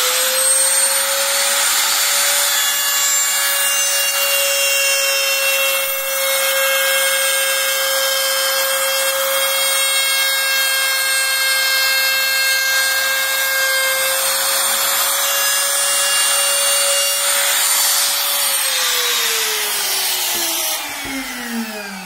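Makita 3709 trim router running at full speed with a steady high whine while its bit cuts a rabbet about 3.5 to 4 mm deep along the edge of a pine board. It is switched off near the end, and the whine falls in pitch as the motor spins down.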